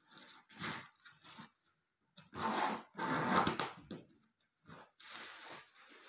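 Irregular scraping and crunching handling noises in several short bursts, the loudest about two to four seconds in.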